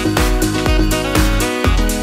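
Upbeat electronic background music with a steady beat and a pulsing bass line.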